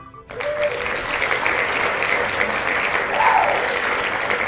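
Wheel of Names website's winner sound effect: recorded crowd applause and cheering, played as the spinning wheel stops on a name. It starts suddenly just after the spin music ends, with one cheer rising and falling about three seconds in.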